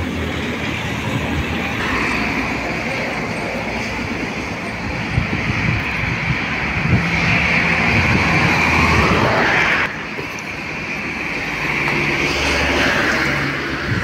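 Road traffic going past close by: a steady rush of tyres and engines, with one louder vehicle swelling up about seven seconds in before the sound drops suddenly near ten seconds, then building again near the end.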